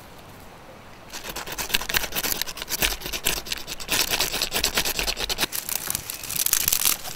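Fire steel scraped again and again with a metal striker, a run of fast rasping strokes starting about a second in and loudest near the end. The strokes throw sparks onto dry bark tinder, which catches.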